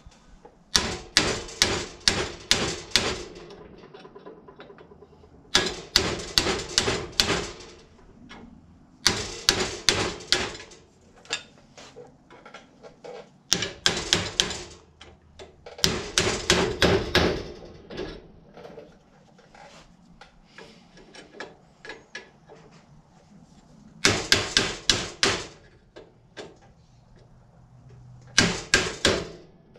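Rapid hammer blows driving a screwdriver used as a chisel or punch into a steel seat bracket clamped in a bench vise, working its pins and welds loose. The blows come in about seven quick bursts of several ringing metal strikes each, with short pauses between.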